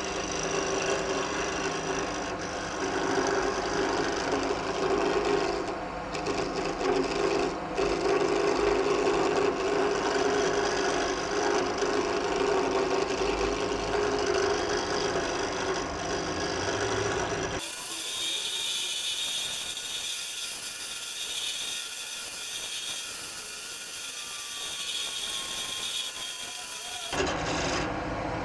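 Wood lathe running while a hand-held turning tool cuts a spinning wooden blank down to a dowel: a steady motor hum with a rough scraping, cutting noise. For about ten seconds past the middle the low hum drops out, leaving a thin high hiss, before the fuller sound returns near the end.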